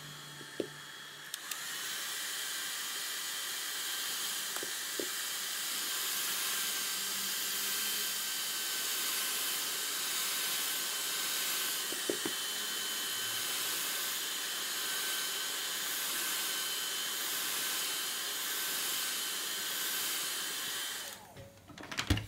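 Handheld hot-air blower running steadily with a hiss and a faint whistle, heating an iPhone 6S's edge to soften the screen adhesive. It gets louder about a second and a half in and cuts off suddenly near the end, followed by a few handling clicks.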